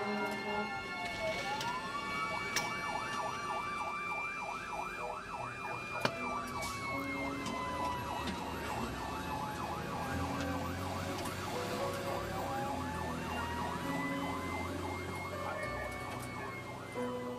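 Fire truck sirens: one wails in slow falling and rising sweeps while another warbles rapidly for the first half. Soft sustained music runs underneath, with two sharp clicks early on.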